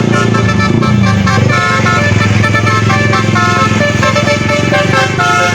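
Tour bus's Basuri telolet musical horn playing a tune of steady notes that change pitch every fraction of a second, over the bus's engine running low underneath.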